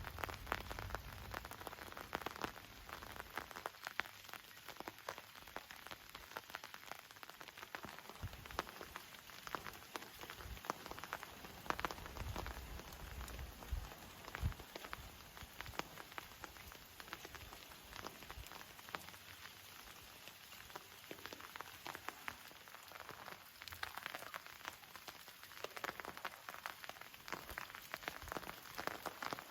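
Rain falling, a steady patter of many separate drops hitting surfaces, with a few faint low thumps in the middle.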